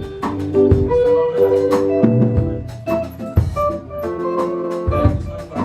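A live band playing an instrumental groove: electric bass, guitar or keyboard chords and a drum kit keeping a steady beat.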